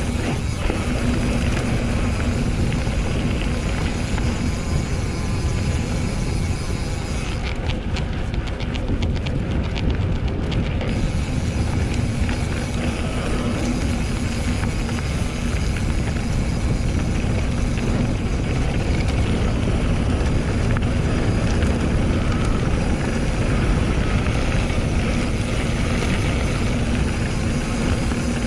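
Steady rumble of a Scott Scale RC mountain bike being ridden, tyres on the trail and wind on the camera microphone, loud and unbroken throughout.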